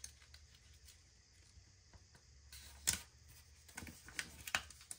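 Faint taps and light clicks of sticker paper being handled, with one sharper click about three seconds in and a few more small ticks near the end.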